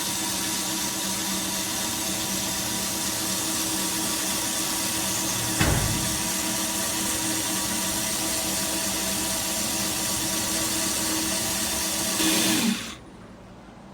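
3.6V cordless electric screwdriver running steadily with no load, a small electric motor whine with one short knock about six seconds in. It gets louder for a moment just before it stops near the end.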